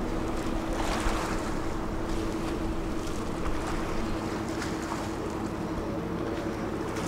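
Commuter ferry under way: its engine runs with a steady, unchanging hum over a constant rushing wash of water and wind.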